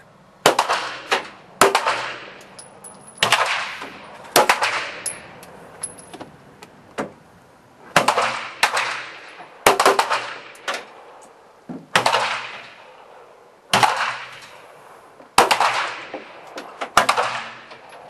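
Pistol shots from several shooters firing along a firing line, coming unevenly at about one a second, sometimes two close together. Each is a sharp crack with a short echoing tail.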